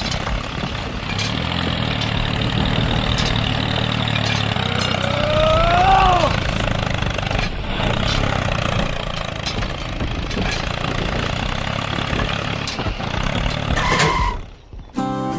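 A vehicle engine running steadily with a low, even hum. About five to six seconds in, a short pitched sound rises and then falls away.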